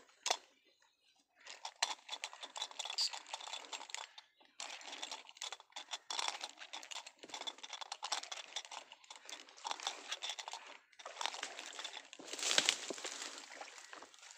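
Leaves and plant stems rustling and crackling close to the microphone as someone pushes through dense leafy undergrowth, a continuous crinkly rustle that pauses briefly twice.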